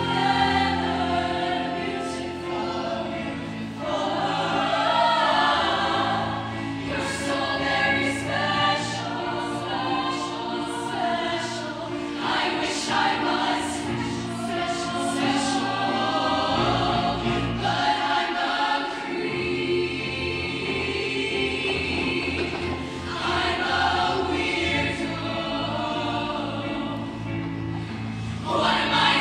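Show choir singing a ballad, many voices in sustained harmony.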